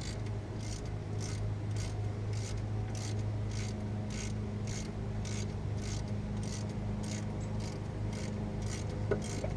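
Repeated hand rasping or scraping strokes, evenly paced at about two a second, over a steady low hum.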